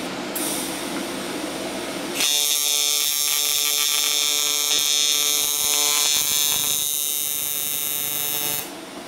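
AC TIG welding arc on thick aluminum from a Primeweld 225 welder: a steady electric buzz that starts about two seconds in and cuts off abruptly near the end as the weld at the end corner is finished.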